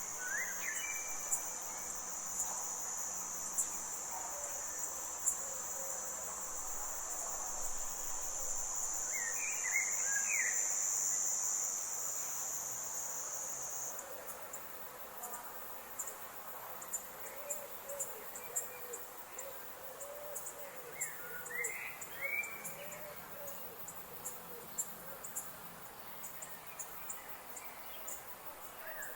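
Forest ambience: a steady high insect drone that cuts off suddenly about halfway through, with short bird calls about four times and faint ticking throughout.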